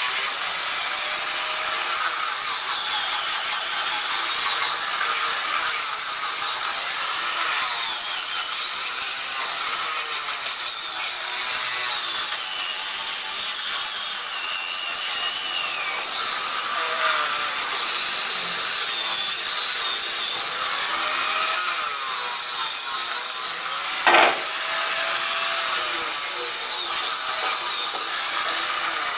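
Steady rubbing of abrasive paper on a wooden chair, continuing without a break, with one sharp knock near the end.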